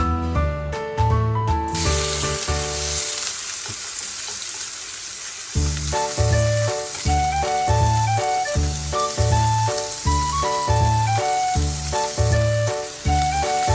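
Food sizzling as it fries in a hot pan; a steady hiss starts suddenly about two seconds in, under background music with a regular beat.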